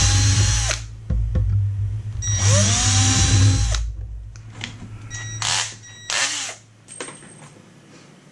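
Cordless drill pre-drilling a pilot hole in plastic, running in two short bursts with its whine rising as it spins up each time: the first stops just under a second in, the second runs about a second and a half from about two seconds in. A few light clicks and knocks follow.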